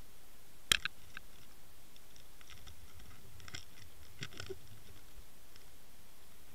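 Underwater clicks and scratching: one sharp click under a second in, then scattered faint clicks in small clusters, over a steady hiss.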